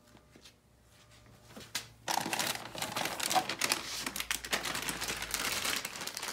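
Plastic bag crinkling as it is handled. After a few faint clicks, a dense crackling starts about two seconds in and keeps going.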